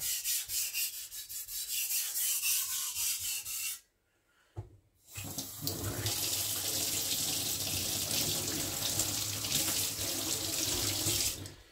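Kitchen tap running steadily into a steel sink, starting about five seconds in after a short silence and stopping near the end. Before that, a few seconds of quick, evenly spaced rubbing strokes.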